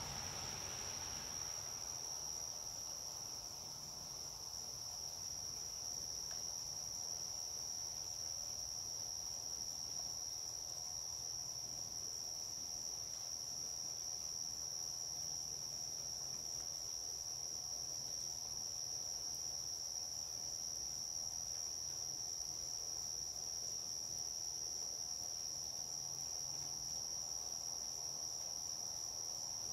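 A steady, high-pitched chorus of night insects. A lower rushing noise dies away in the first two seconds.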